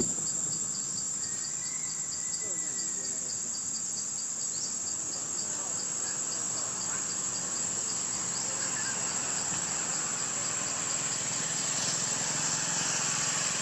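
Insects chirring: a steady high-pitched drone, with an evenly pulsing chirp just beneath it.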